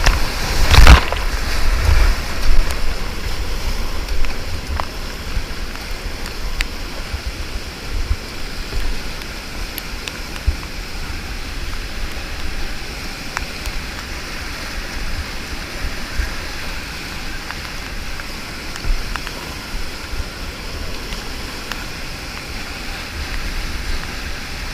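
Rushing whitewater rapids give a steady roar of water, with low buffeting on the camera microphone. A brief loud burst of noise comes about a second in.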